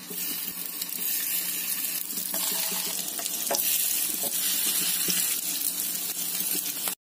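Hot oil sizzling in a non-stick frying pan as pieces of vegetable-stuffed chapati dough are laid in to shallow-fry, with a few soft taps as they go down. The sizzle cuts off suddenly near the end.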